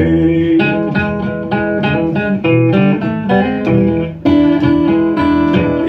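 Archtop guitar playing an instrumental blues break: a run of picked single notes and chords, with a chord struck hard a little past four seconds in.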